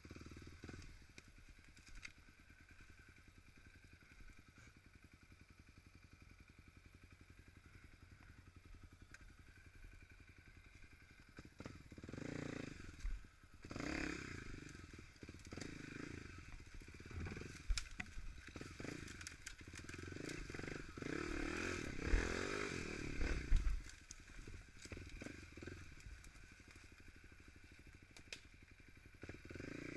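Motorcycle engine running low and steady, then revving up and down repeatedly for about twelve seconds, with knocks and clatter, as the bike works over rough ground; it settles back to a low steady run near the end.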